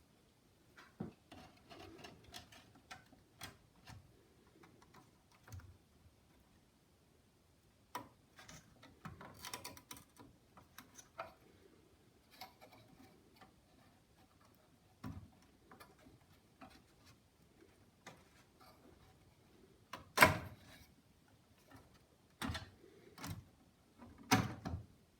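A memory expansion card being worked loose from its pin header on an RM Nimbus PC-186 motherboard: scattered clicks, scrapes and knocks of circuit board handling, with the loudest knock about 20 seconds in and more knocks near the end.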